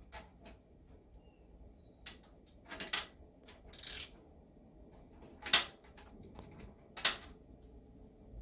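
Small metal hand tools clinking and scraping on the crank and connecting-rod parts of an International Harvester Type M hit-and-miss engine while the rod's big-end bearing is opened up for a shim adjustment. There are about five sharp clinks, spread out, the loudest a little past halfway; the one near the middle is a short scrape.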